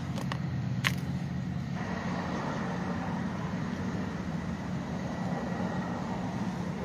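An engine running steadily, with a few sharp clicks in the first second.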